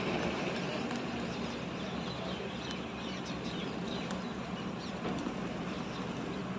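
Steady outdoor background noise, like distant traffic, with faint bird chirps over it.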